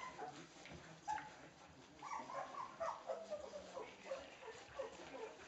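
Australian Shepherd puppies whimpering and squeaking, a string of short high calls that come thick and fast from about two seconds in.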